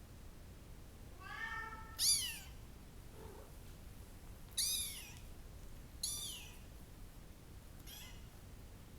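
Bengal kittens mewing: about four short, high-pitched calls that slide down in pitch, the loudest about two seconds in and the last one faint near the end.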